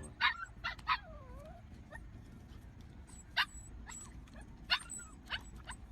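A dog yipping and whimpering: three quick high yips, a sliding whine, then single yips spaced more than a second apart.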